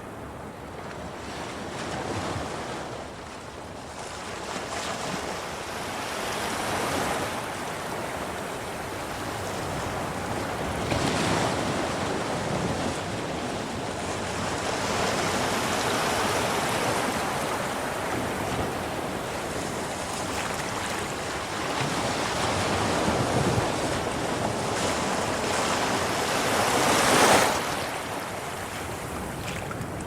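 Sea waves of a rising tide washing over rocks: a continuous rushing wash that swells and eases with each wave, the biggest surge coming near the end.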